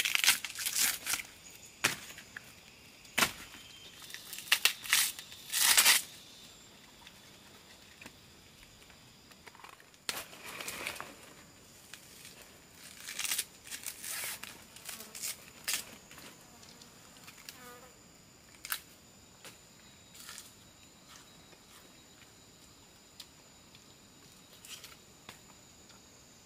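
Irregular rustling and crackling, dense and loudest in the first six seconds, then sparser bursts and scattered ticks. Underneath is a thin, steady, high insect drone.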